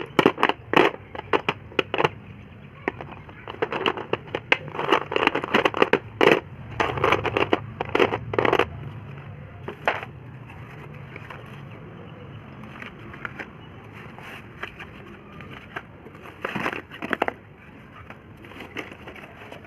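Slate pencils cracking and crunching in quick runs of sharp clicks during the first half, then sparser, with another short cluster near the end.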